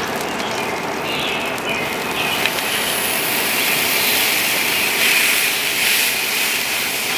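Thick-cut Angus ribeye sizzling as it is laid on the hot grate of a Weber kettle grill and pressed down. The hiss grows louder about two seconds in.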